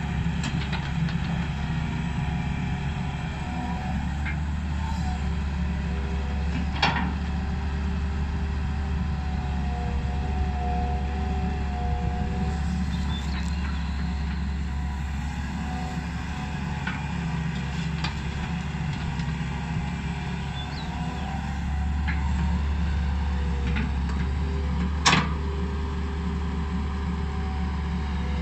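Hitachi EX120 hydraulic excavator working, its diesel engine running steadily under load with a wavering whine over it. Occasional sharp knocks cut through, the loudest near the end.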